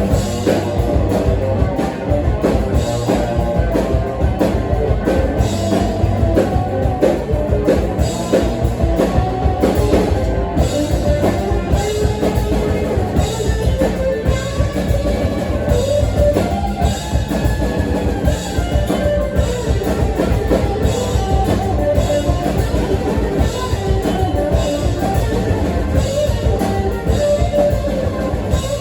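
Live rock band playing, with guitar and a drum kit keeping a steady beat throughout.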